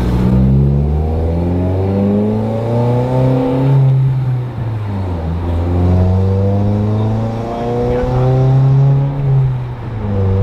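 2021 Toyota Corolla hatchback's 2.0-litre four-cylinder through a new 2J-Racing cat-back exhaust and mid-pipe, pulling hard under acceleration. The pitch climbs steadily, drops at an upshift about four and a half seconds in, then climbs again and drops once more near the end.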